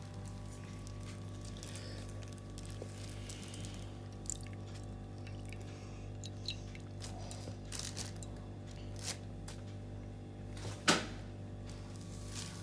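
Melted butter being poured from a bowl into a glass baking dish, faint over a steady low hum, with a few small clicks and one sharp tap near the end.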